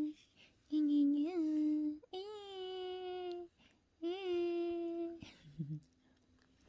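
A woman humming or singing softly without words in three long held notes, the voice stopping a little after five seconds in.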